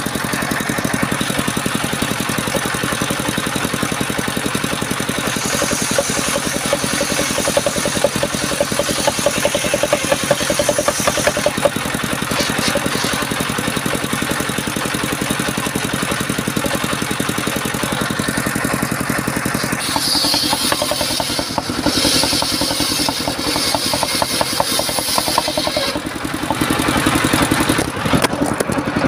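Engine-driven mobile circular sawmill running steadily, with a higher hiss that comes and goes in stretches as the blade cuts through timber.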